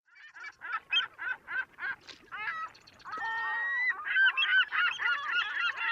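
A goose honking in a series of short calls, about three a second, then a longer call and a run of rapid, overlapping honks from about four seconds in, as it drives a seagull off its perch.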